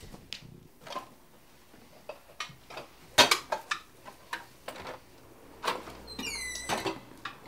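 Scattered footsteps and handling knocks, then a short high squeak about six seconds in as a door hinge swings open.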